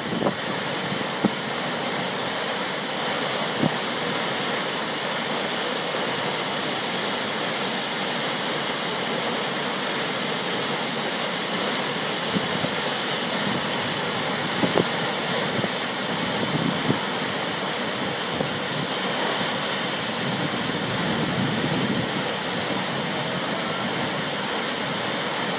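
Kegon Falls, a tall plunge waterfall, giving a steady, even rush of falling water. A few brief faint knocks stand out, the clearest a little past the middle.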